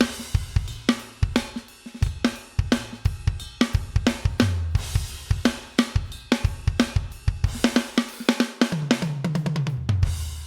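Sampled acoustic drum kit from a Pearl Mimic Pro electronic drum module, played as a steady groove of kick, snare, hi-hat and cymbals. Near the end comes a fill down the toms, each hit lower in pitch than the last.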